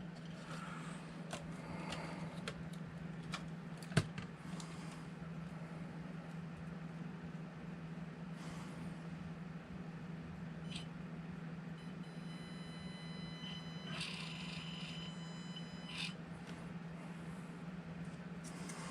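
Small electric motor of an Axial SCX24 1/24-scale RC crawler running slowly, turning the freshly greased drivetrain gears, with a steady low hum and a few light clicks, one sharper click about four seconds in. A higher whine joins for a few seconds past the middle.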